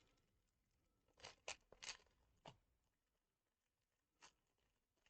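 Faint handling noises from small objects: a quick cluster of four sharp clicks and crinkles about a second in, and one more near the end.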